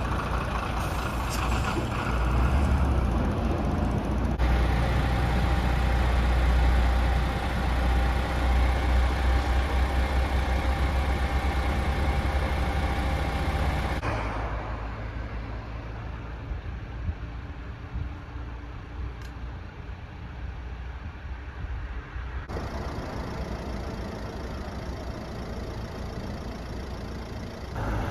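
Motor vehicle engines and road traffic, a heavy steady rumble. The sound changes abruptly about four seconds in, again near the middle, and again about two-thirds through, and it is quieter in the second half.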